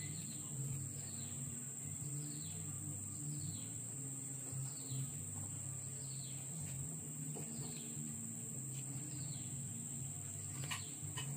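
Outdoor rural ambience: a steady high-pitched insect drone, with a bird repeating a short falling chirp about once a second, over a low steady hum. A few faint clicks near the end.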